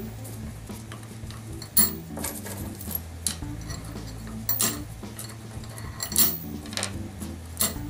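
Ceramic saddle packing pieces clinking as they are handled and dropped one by one into a clear scrubber cylinder: separate sharp clicks every second or so, the loudest about two seconds in.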